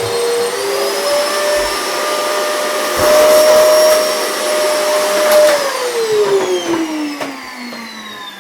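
Vacuum cleaner motor running with a steady whine that rises slightly in pitch early on. About five and a half seconds in it is switched off, and the whine falls steadily in pitch and fades as the motor spins down.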